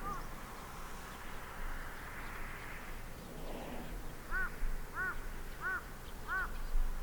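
A bird calling: four short calls in a row about two-thirds of a second apart in the second half, each rising then falling in pitch.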